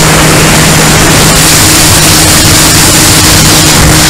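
Motor and propeller of an RC aerobatic plane in flight, heard from a camera on the plane: a steady drone under loud, dense wind rush on the microphone.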